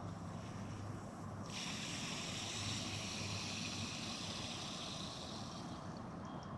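Water hissing through a garden hose as the tap is opened slowly to pressurize a capped PTFE hose for a leak test. The hiss starts suddenly about a second and a half in and eases off near the end.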